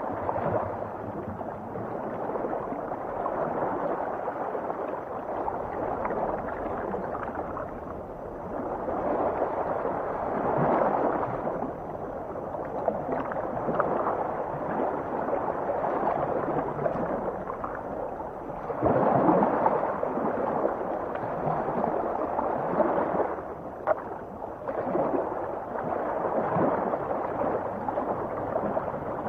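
Underwater ocean ambience: a continuous gurgling wash of water that swells louder twice, about a third and about two-thirds of the way through, with a brief dip near the end.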